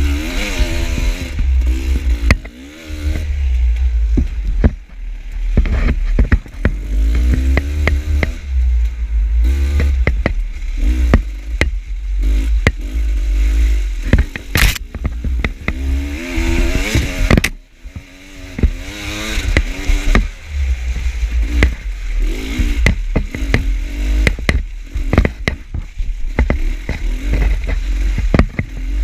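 Two-stroke enduro dirt bike engine revving up and falling back over and over while riding a rough trail, with frequent sharp knocks and clatter.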